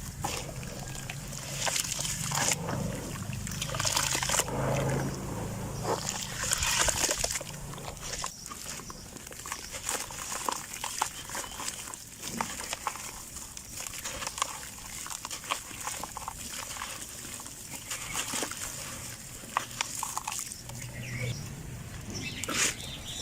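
Lumps of red dirt crunching and crumbling, with irregular gritty crackles and some wet, squelchy sounds from soaked dirt.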